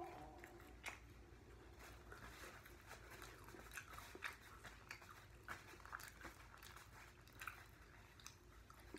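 Faint, close-up chewing and biting of chicken wings eaten by hand, with small irregular wet clicks and smacks.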